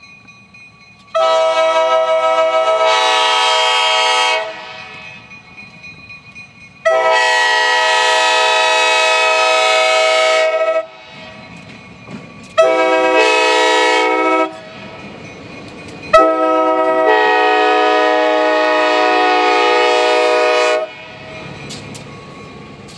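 Air horn of GP11 diesel locomotive 310 blowing the grade-crossing signal: two long blasts, a short one and a final long one, as it approaches a road crossing. The locomotive's low rumble carries on between the blasts.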